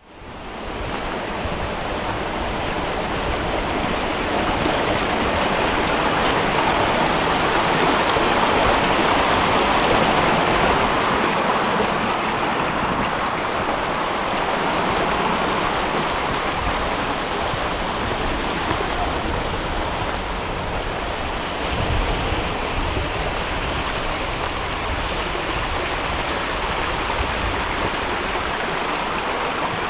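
Steady rush of a small woodland stream flowing over stones, fading in at the start and loudest around ten seconds in.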